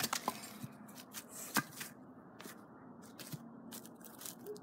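Scattered light wooden knocks and rustling in dry leaves as split firewood is handled and the axe is set down, with one sharper knock about a second and a half in.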